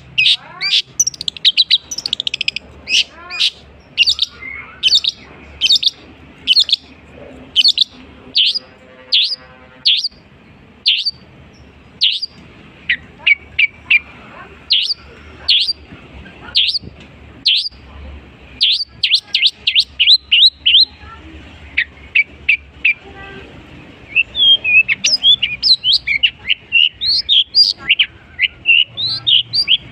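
Long-tailed shrike (cendet) singing a varied song of sharp, high chirps and whistles, mimicking other birds' calls. The notes come singly about one or two a second at first, then in quick runs, thickest in the last few seconds.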